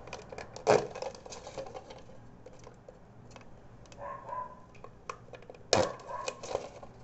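Knife blade piercing and cutting the hard bottom of a plastic PET bottle: irregular crackling clicks of the plastic, with two louder cracks, one about a second in and one near the end.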